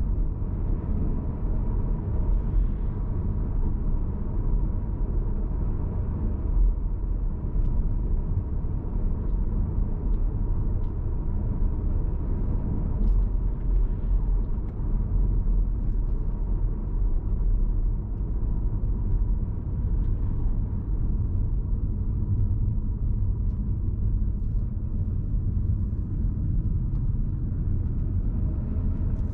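Cupra Formentor VZ5's 2.5 TFSI five-cylinder engine and road noise as the car drives along, a steady low rumble with no big revs.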